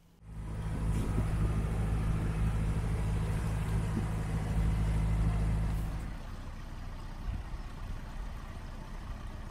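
Narrowboat's engine running steadily at cruising speed with an even low hum. About six seconds in it cuts to a much quieter, fainter hum.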